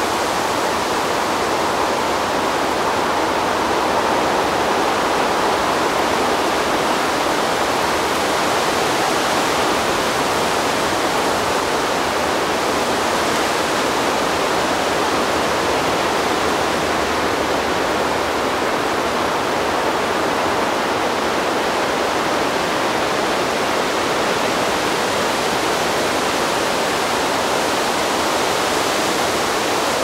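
Wind blowing steadily through trees, an even rushing noise without distinct gusts.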